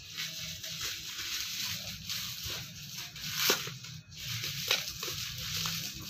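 Plastic bubble-wrap packaging crinkling and rustling as it is handled and squeezed, with a couple of sharper crackles about halfway through.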